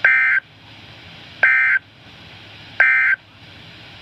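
NOAA Weather Radio EAS end-of-message signal: three short, buzzy digital SAME data bursts about a second and a half apart, with steady radio hiss between them. It marks the close of the Required Weekly Test broadcast.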